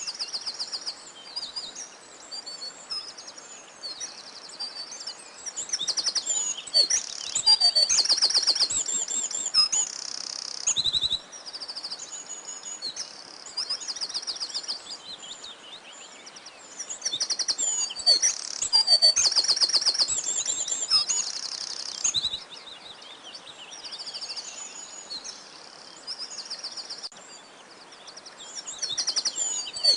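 Several songbirds singing and chirping, with fast trills of high repeated notes overlapping one another. The singing swells louder in a couple of stretches.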